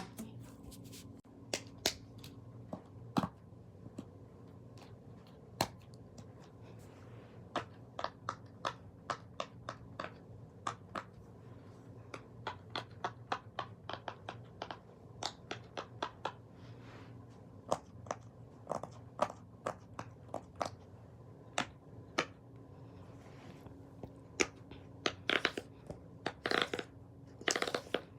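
Plastic fidget toys being handled and clicked: scattered sharp clicks and snaps at an uneven pace, denser and louder near the end, over a faint steady hum.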